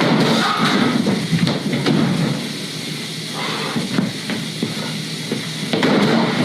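Refrigerator door being bashed and wrenched at: repeated small knocks and clattering over a steady noisy background.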